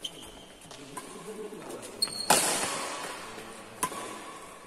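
Badminton rackets striking a shuttlecock with sharp pops about once a second in a doubles rally, with a short shoe squeak on the court floor. The loudest hit comes a little past two seconds in and rings on in the hall.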